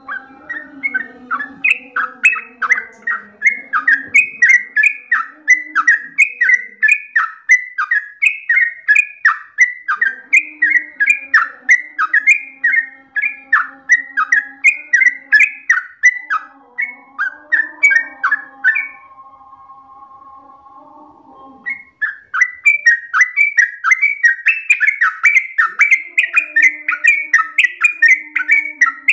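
Yellow-vented bulbul (trucukan) singing a long, fast run of chirping notes, about three a second. The song stops for about three seconds a little past the middle, with only fainter lower warbling under it, then picks up again.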